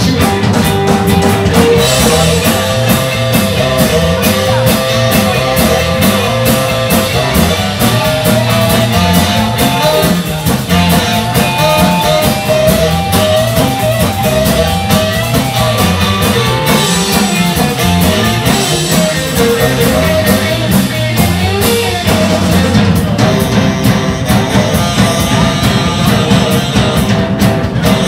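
Live garage rock and roll band playing loud on electric guitar, bass, drums and tenor saxophone.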